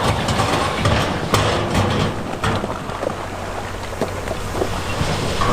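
Diesel heavy equipment running with a steady low hum, while stones clatter and knock against each other and on steel.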